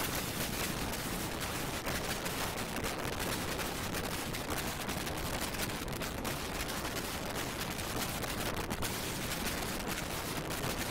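Running noise of a moving passenger train: a steady rush with dense, rapid rattling and crackling clatter throughout.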